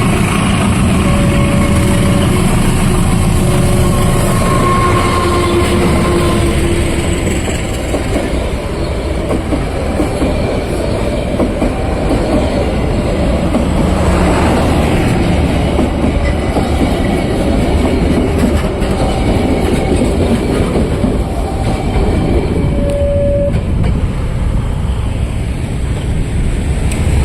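A train running through a level crossing, a loud steady rumble of wheels on rail, with short pitched tones sounding now and then.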